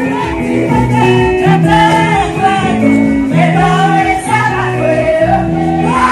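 Church praise singing: women's voices singing a gospel song together over amplified instrumental backing with a steady, moving bass line.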